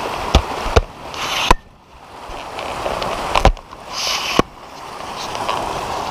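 Water rushing and splashing as inflow jets pour into concrete fish-hatchery raceways, with several sharp knocks and two brief drops in the sound.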